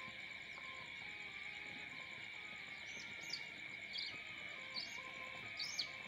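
A pen of young chicks peeping together in a steady high chorus. Louder single peeps, each sliding down in pitch, come four times in the second half.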